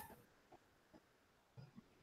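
Near silence: room tone, with one brief faint click at the very start.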